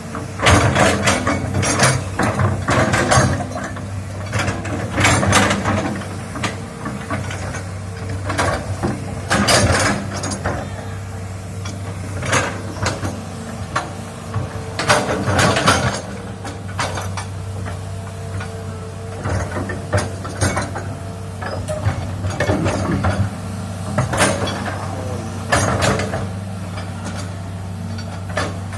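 Hitachi hydraulic excavator working: its diesel engine runs with a steady low hum while irregular loud clanks and knocks of metal come every second or few.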